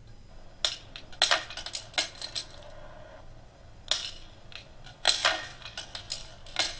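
Dry wisteria seed pods bursting open on the vine: about a dozen sharp, irregularly spaced pops and cracks, the explosive splitting by which wisteria scatters its seeds.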